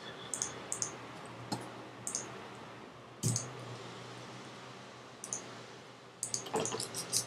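Scattered clicks of a computer keyboard and mouse, the loudest a little over three seconds in, then a quick run of keystrokes near the end, over a faint steady hum.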